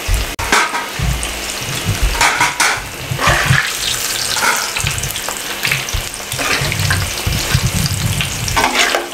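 Chicken chapli kababs deep-frying in hot oil in a wide pan, a steady sizzle, with a spatula moving and turning them in the oil now and then.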